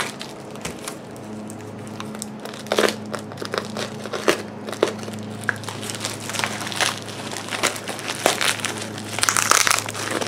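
Clear plastic wrapping crinkling and tearing in irregular crackles as it is pulled off a new stainless-steel bumper overrider by hand, busiest near the end. A steady low hum runs underneath.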